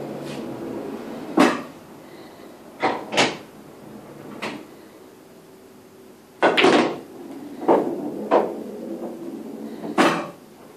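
Pool balls and cue: about nine sharp clacks spread irregularly across the stretch, some in quick pairs, with a low rumble of rolling balls between them.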